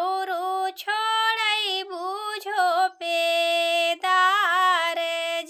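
A woman's high voice singing a traditional Awadhi wedding folk song (vivah geet), with ornamented, wavering phrases and long held notes near the middle and end.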